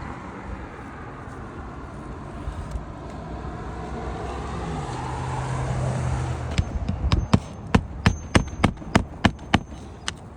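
A steady low motor hum that swells, then a run of about a dozen sharp knocks, roughly three a second, near the end.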